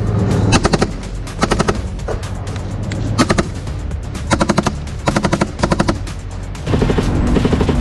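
Machine gun firing from a tank in about six short bursts of rapid, evenly spaced shots, over a steady low drone.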